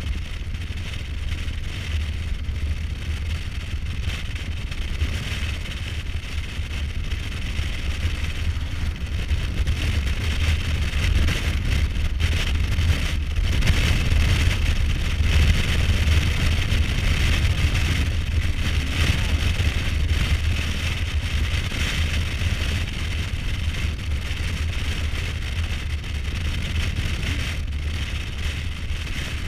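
Kawasaki Versys 1000 motorcycle riding at speed on a dirt road: a steady mix of engine and tyre noise with heavy wind rush on the microphone. It grows a little louder in the middle.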